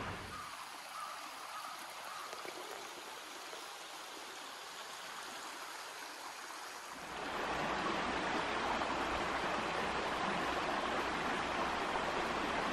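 A shallow mountain stream running over rocks. It is faint and distant at first, then louder and close from about seven seconds in.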